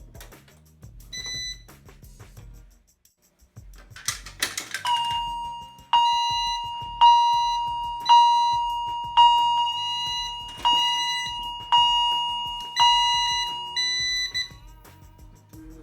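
Fire alarm demonstration system in alarm: a steady electronic tone with a chime-like sounder striking about once a second over it, each strike fading away. A short beep comes about a second in and a brief clatter just before the alarm starts, and the signals stop near the end.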